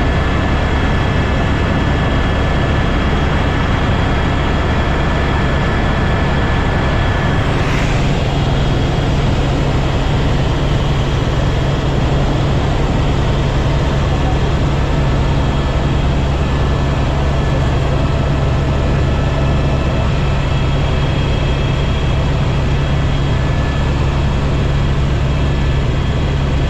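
Helicopter in flight: a loud, steady drone of rotor and turbine engine, with a thin constant whine above it.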